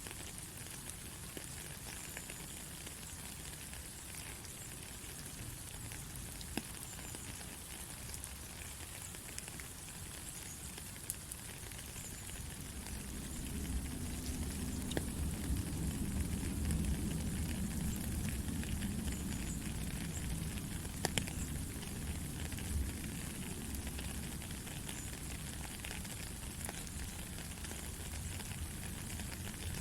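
Steady rain hissing, with scattered single drops ticking. About halfway through, a low rumble swells up underneath and stays.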